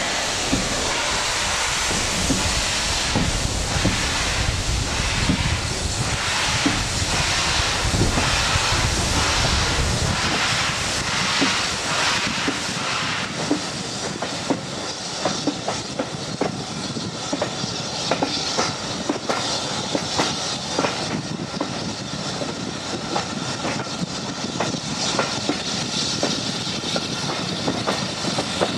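Ride in a carriage behind a BR Standard Class 4 2-6-4 tank steam locomotive, heard at an open window: the coach wheels clicking over rail joints, with the engine's steam exhaust beating and hissing. The exhaust beats and heavy rumble are strongest in the first half and drop back about midway, leaving mainly the wheel clicks.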